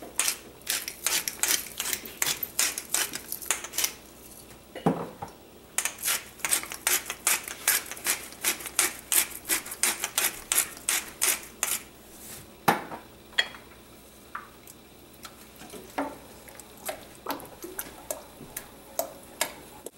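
Quick, regular scraping strokes in a stainless stockpot of crushed tomato sauce as salt and pepper are worked in, with a break at about four seconds. After about twelve seconds the strokes thin out to scattered knocks of a wooden spoon against the pot.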